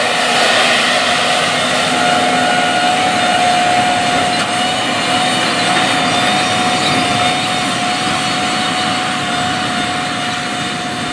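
Case IH Magnum 400 tractor working under load, pulling a 40-foot Case IH 550T precision air drill through corn stubble while no-till seeding: a steady engine drone with one constant high whine. It grows slowly fainter toward the end as the rig moves away.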